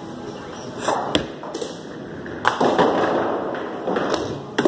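Bowling alley clatter: a few sharp knocks and thuds, then from about two and a half seconds in nearly two seconds of bowling pins clattering, and another sharp knock near the end.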